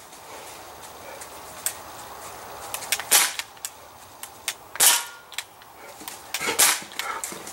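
Crosman C11 CO2-powered semi-automatic BB pistol firing three shots about a second and three-quarters apart, each a sharp crack. Fainter clicks come in between.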